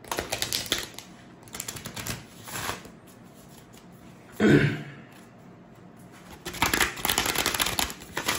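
A deck of Divine Masters Oracle cards being shuffled by hand in three bursts of riffling and flicking card edges, with a brief, louder voice sound about halfway.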